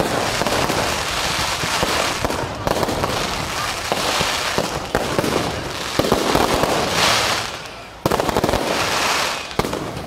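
Aerial fireworks going off in a continuous barrage of overlapping bursts and bangs, with sharp reports about five seconds and eight seconds in.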